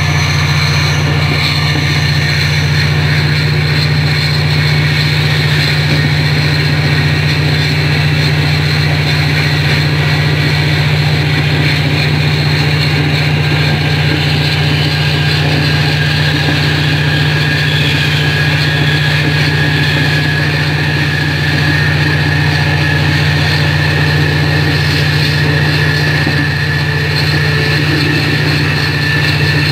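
Diesel passenger train's engine running with a steady, unbroken drone while the train is under way, heard from inside the carriage.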